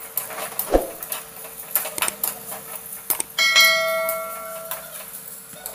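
Steel spatula scraping and clinking against a steel kadai as grated coconut is stirred, with scattered sharp clicks. About three and a half seconds in comes a clear bell-like metallic ring that fades over about a second and a half.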